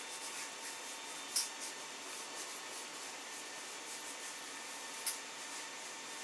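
Handling noise from a 3D-printed plastic screwdriver holder and its hex drivers: faint rubbing of plastic with two sharp clicks, one about a second and a half in and another about five seconds in.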